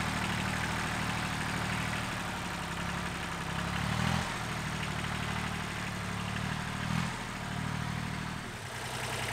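Compact tractor engine running as the tractor drives off, a steady low note that shifts a few times as the revs change.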